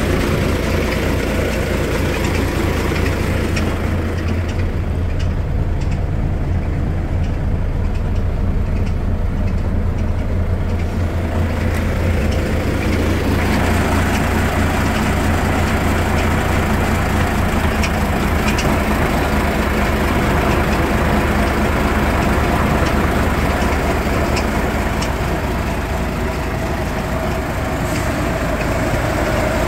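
Mercedes-Benz 1414 K truck's diesel engine running steadily at idle. The sound turns brighter and harsher about halfway through.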